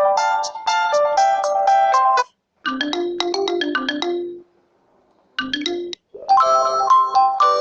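Coolpad Note 5 Lite ringtones playing one after another: bell-like electronic melodies, each cut off abruptly. One tune stops about two seconds in, a lower one plays until about four and a half seconds, and after a second of silence a brief snippet leads into a new melody near the end.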